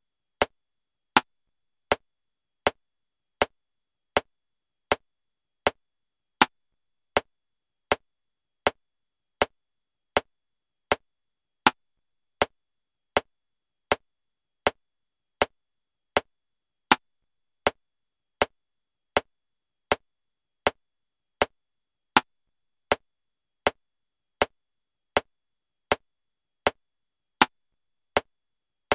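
Metronome clicking steadily at 80 beats per minute in 7/4 time, one click about every three-quarters of a second, with a louder accented click on the first beat of every seven.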